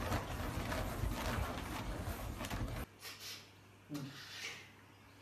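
Scuffling and rustling of bedding as a young caracat wrestles with a hand on a mattress, stopping abruptly about three seconds in. After that come two short breathy sounds.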